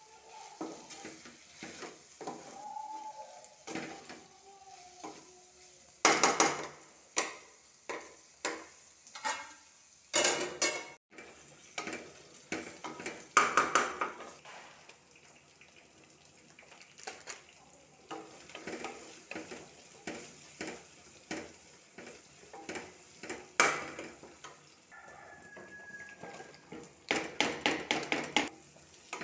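Wooden spatula stirring okra frying in oil in a metal pot: irregular knocks and scrapes against the pot over a faint sizzle, ending in a quick run of knocks near the end.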